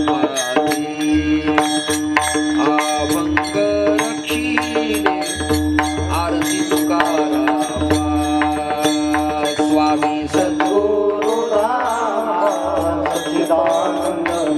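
A kirtan ensemble performing a Marathi devotional abhang: voices sing a wavering melody over a steady drone, with deep drum strokes and small hand cymbals clashing in a steady rhythm.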